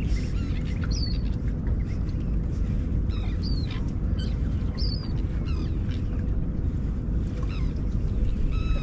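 Birds calling with short, scattered chirps and whistles, many sliding down in pitch, over a steady low rumble.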